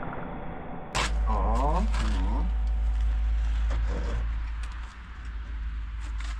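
Background music ends about a second in. Then a short voiced sound comes, followed by scattered knocks and scrapes of a window being handled and set into a wall opening, over a steady low rumble.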